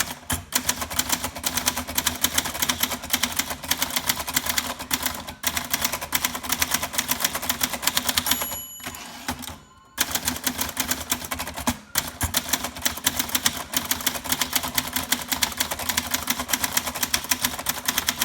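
Brother Signature 440T manual typewriter, a 1970 plastic-bodied JP1, being typed quickly in a dense run of snappy key strikes. About eight and a half seconds in a bell rings, the typing pauses briefly, and then the strikes resume.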